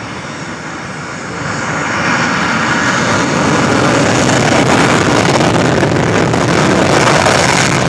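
F-16 fighter's jet engine running up to takeoff power, a loud jet rumble that swells about one and a half seconds in and stays loud as the aircraft begins its takeoff roll.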